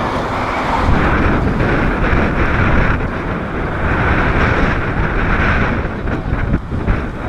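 Strong gusty wind buffeting the microphone over the noise of a jet airliner's engines, which swells and fades.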